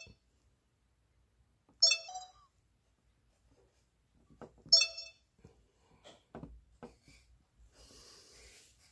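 Sony Handycam camcorder's touch-panel beeps: two short chime-like beeps about three seconds apart as the touchscreen menu is tapped, with faint taps of the fingertip on the screen. Soft handling clicks and a faint rustle follow near the end.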